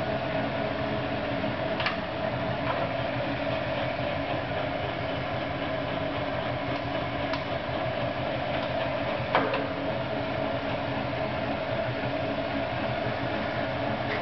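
Oliver Model 600 drill grinder running steadily under power in one of its other gear settings: an even mechanical hum. A few light clicks come through, with one sharper knock about nine seconds in.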